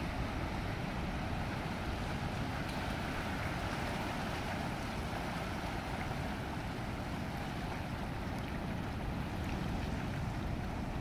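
Ocean surf breaking and washing in among rocks on a sandy beach: a steady, even rush of waves.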